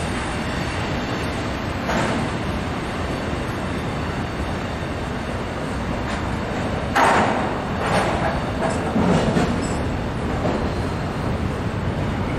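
Two double-stack intermodal container trains rolling past side by side, a steady rumble of freight cars on the rails. There are louder swells of wheel noise about 2, 7, 8 and 9 seconds in.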